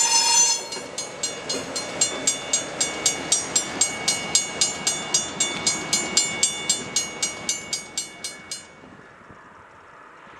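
Railroad grade-crossing bell ringing rapidly, about three and a half strokes a second, over the rumble of a departing train, and stopping near the end. A train horn blast cuts off just at the start.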